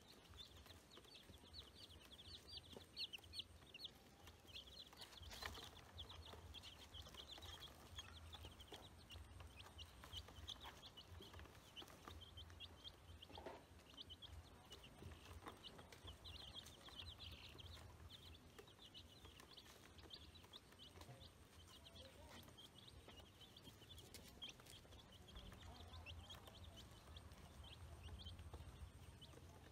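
Faint, continuous peeping of a brood of baby chicks and ducklings: many short, high peeps overlapping in quick succession, with a few soft clicks mixed in.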